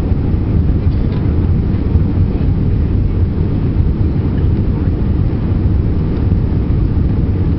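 Steady low roar of jet engines and rushing air, heard inside an airliner's cabin low on final approach.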